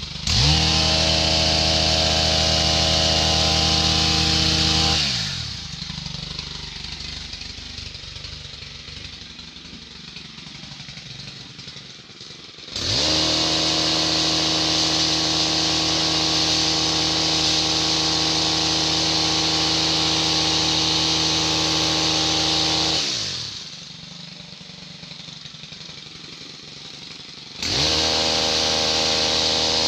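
STIHL KM 131 R Kombi engine driving an HL-KM 145 long-reach hedge trimmer, cutting a hedge. The engine is throttled up in three bursts: about five seconds, then about ten seconds, then one more beginning near the end. It falls back to idle between bursts, with a quick rise in pitch as each burst starts and a fall as it ends.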